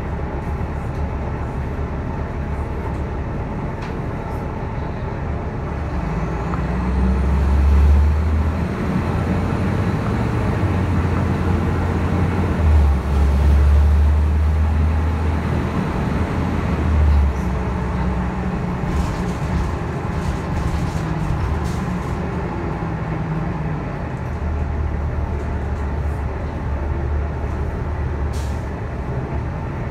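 City transit bus heard from inside the passenger cabin: a steady low engine drone that swells louder a few times, about seven, thirteen and twenty-five seconds in, as it pulls along. A few short clicks come in the second half.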